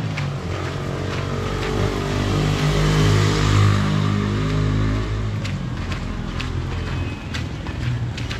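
A motor vehicle's engine passing close by, growing louder to a peak about three and a half seconds in, then fading.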